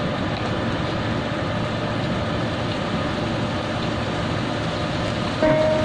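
Vegetables and meat cooking in a wok over a gas burner: a steady, even sizzling hiss with no stirring. Plucked-string music comes in just before the end.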